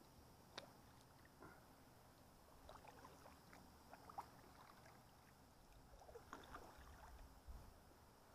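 Near silence with faint, scattered clicks and light knocks from a kayak and its gear on the water.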